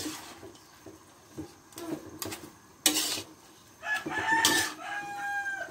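Metal ladle scraping and clinking against a steel wok while stirring glass noodles and vegetables, in a few short strokes. About four seconds in, a rooster crows once, a long call that drops in pitch at the end.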